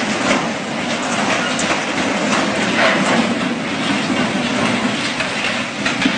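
Torrent of floodwater rushing, with frequent cracks and knocks as a house breaks apart in the current.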